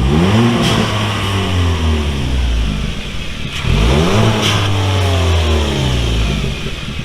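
A 2021 Kia Forte GT's turbocharged 1.6-litre four-cylinder engine is revved twice with no load, climbing and falling back each time. Each blip ends in a short, faint whoosh from its aftermarket GFB blow-off valve venting boost to the air as the throttle closes.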